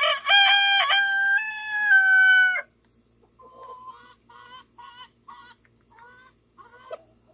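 Rooster crowing once: one loud, drawn-out call of about two and a half seconds. It is followed by a chicken's softer clucking, a string of short repeated notes.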